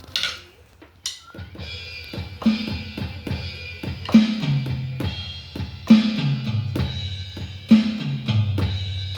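Donner electronic drum kit being played: a tom fill stepping down from high tom to floor tom, repeated four times about every second and three-quarters, with cymbal wash ringing over it.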